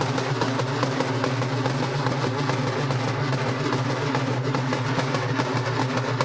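Several two-headed barrel drums beaten together with sticks in a fast, dense, unbroken beat.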